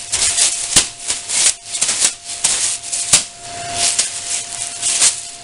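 Thin plastic dog waste bags being rubbed, crumpled and flapped to get one open: repeated rustling swishes with sharp crackles.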